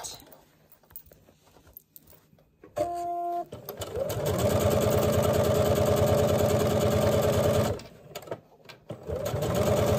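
Electric sewing machine stitching through layers of cotton fabric and batting: after a few quiet seconds while the fabric is turned, it runs steadily for about four seconds, stops briefly, then starts stitching again near the end.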